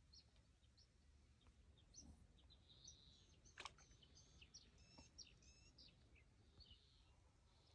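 Faint birdsong: a run of short, high chirps, busiest from about two to six seconds in, over quiet open-air background, with one soft click about three and a half seconds in.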